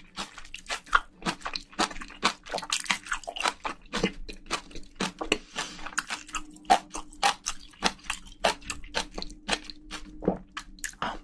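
Close-miked chewing and crunching of a mouthful of spicy braised seafood with bean sprouts: a fast, uneven run of wet crunches and clicks.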